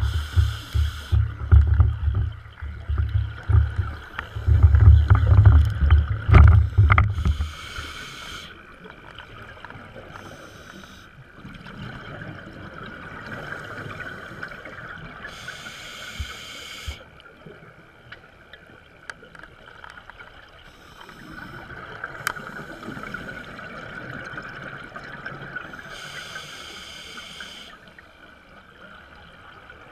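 Underwater sound of scuba regulator breathing and bubbles. A brief rushing hiss comes about every eight to ten seconds, and a loud burbling of bubbles fills the first seven seconds or so before settling to a softer watery wash.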